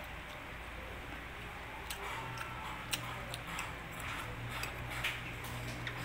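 Close-up eating sounds: chewing with small wet mouth clicks and lip smacks from fingers being licked, scattered from about two seconds in, over a steady low hum.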